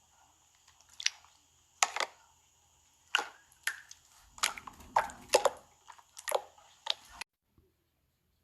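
Close-up eating sounds: about ten sharp, irregular crunches of food being bitten and chewed. They stop abruptly about seven seconds in.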